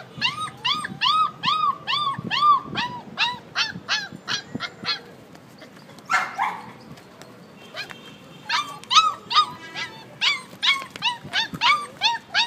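Five-week-old Rottweiler puppies crying in a rapid string of short, high yelps that each rise and fall in pitch, about three a second. The yelps break off for a few seconds in the middle, where there is one brief rough noise, then start again.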